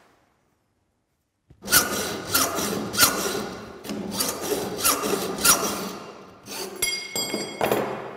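Hand hacksaw cutting a steel L-profile (angle iron) held in a bench vise: a run of rasping back-and-forth strokes, a little under two a second, starting about a second and a half in. Near the end the steel rings out briefly with a clear metallic note, followed by one last stroke.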